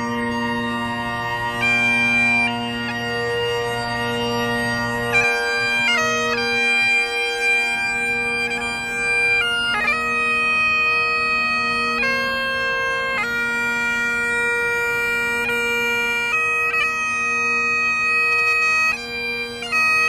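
Great Highland bagpipes playing a slow tune: the drones hold one steady chord while the chanter moves between long held notes, each change marked by quick grace notes.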